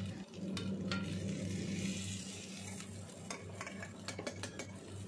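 Boiled potatoes being mashed with a metal potato masher in a frying pan of hot oil and onions: light sizzling under the masher's scraping and tapping against the pan, with a quick run of taps in the second half.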